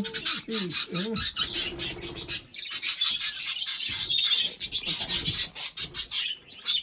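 A roomful of English budgerigars chattering, a dense run of quick high chirps and warbles. A person's voice is heard briefly near the start.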